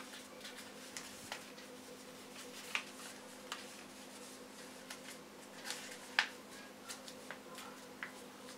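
A sheet of A4 paper crackling and rustling in scattered short crackles as it is pressed, folded and creased by hand, over a faint steady hum.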